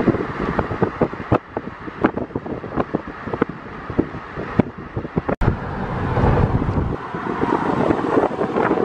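Wind buffeting the microphone while riding in a moving car, with road noise underneath and many short crackling thumps throughout. The sound cuts out for an instant about halfway through.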